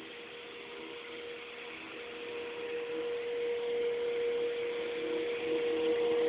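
Tile and grout cleaning machine running with a steady hum, its hiss growing louder about three seconds in.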